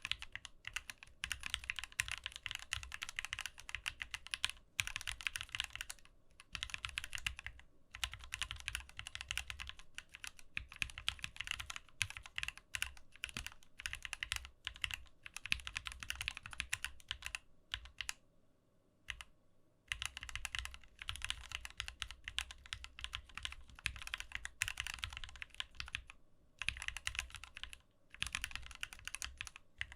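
Typing on a Keychron Q4, a 60% aluminium-cased mechanical keyboard: fast, steady keystroke clacks in continuous runs, stopping briefly for about two seconds past the middle before resuming.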